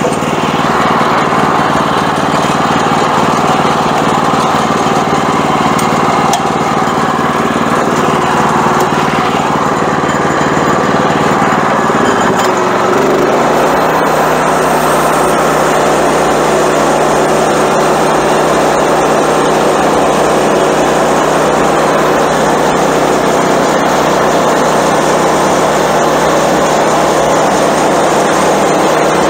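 Small gas engine of a Woodland Mills portable bandsaw sawmill running steadily at high speed. About 13 seconds in, its note drops and settles lower while the saw head feeds along the maple log.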